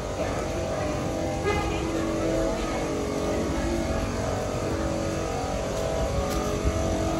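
Road traffic rumbling steadily, with several held tones sounding over it.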